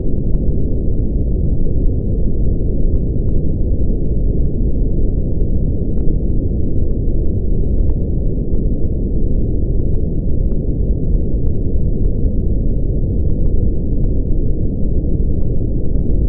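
Synthetic brown noise: a steady, deep rumble, strongest in the lowest range with no high-pitched content, unchanging throughout.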